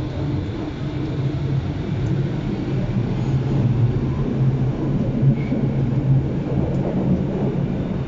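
Interior running noise of a Berlin U-Bahn IK-series train in motion: a steady low hum over the rumble of wheels on rails, growing a little louder in the middle.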